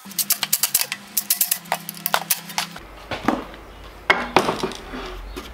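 Metal clinks and knocks of a steel hand-trolley frame and its parts being handled on a workbench: a quick run of light clicks for the first few seconds, then a few separate louder knocks.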